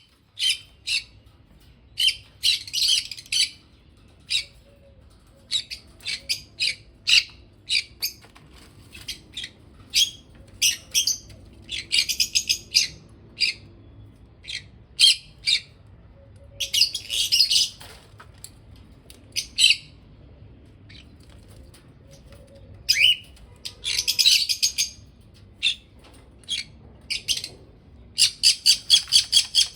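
Small pet parrots chirping and squawking in short, sharp, high-pitched calls, some in quick clusters. Near the end comes a rapid, even run of repeated calls at about five a second.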